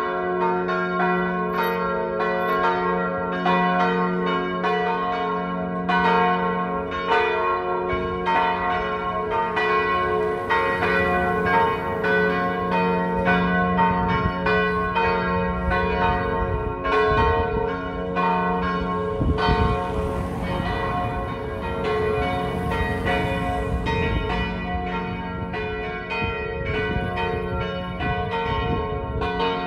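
Full peal of three swinging church bells, tuned to G-flat, B-flat and D-flat, striking in a continuous uneven run of about two strokes a second, with the bells' hum ringing on between strokes.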